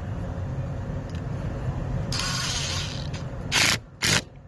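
Ratchet wrench with a Torx bit tightening a seat belt anchor bolt: a rasping run of ratchet clicks about two seconds in, then two loud short ratchet strokes near the end.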